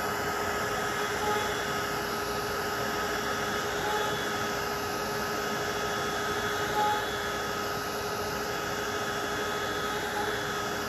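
Spindle of a Shapeoko 5 Pro CNC router running at speed: a steady whine over a rush of air. A few short higher chirps come about every three seconds as the spindle comes down toward the trim board.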